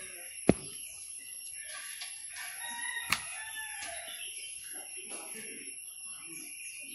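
A rooster crowing, with two sharp taps, one about half a second in and one about three seconds in.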